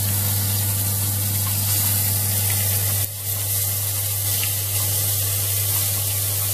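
Whole shell-on shrimp frying in hot oil in a pan, a steady sizzle that dips briefly about three seconds in, over a steady low hum.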